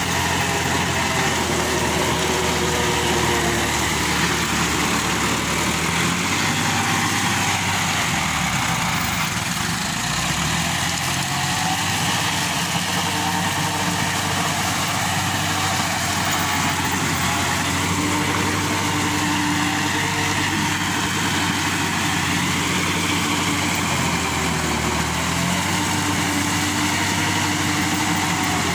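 Tractor diesel engine running under load while its PTO-driven rotary implement churns through banana stalks and soil, a dense chopping and grinding over the engine note. The engine pitch dips and recovers a few times as the load changes.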